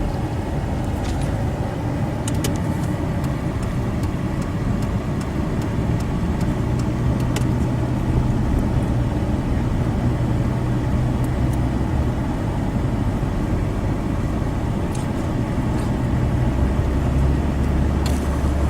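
Steady engine and road rumble of a truck being driven, heard from inside the cab.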